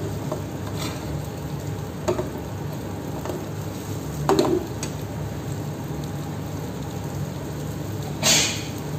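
Eggplant slices sizzling in oil in a steel frying pan, with a metal spatula scraping and knocking against the pan a few times as they are turned. The loudest clank comes near the end.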